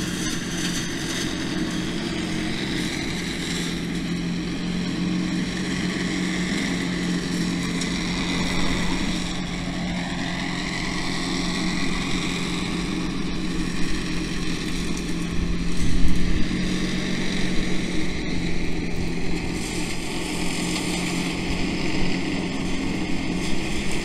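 Tractor engine and its side-arm flail hedge cutter running steadily while trimming a hedge, a constant low drone heard from down the lane.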